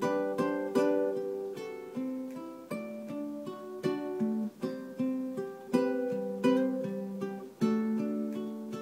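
Solo low-G tenor ukulele (a William King custom) played fingerstyle through an AER Compact 60 acoustic amplifier: a slow melody of plucked, ringing notes over low bass notes.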